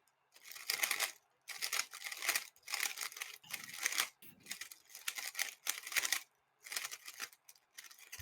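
A 3x3 speedcube being turned rapidly by hand, its plastic layers clicking and clacking in quick bursts of turns with short pauses between them.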